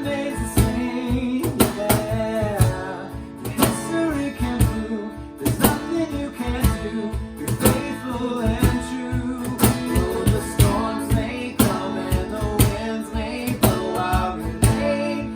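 Worship band music: guitar and drums playing steadily, with singing.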